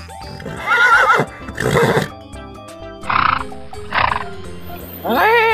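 Horses neighing and whinnying, about five separate calls roughly a second apart, over background music.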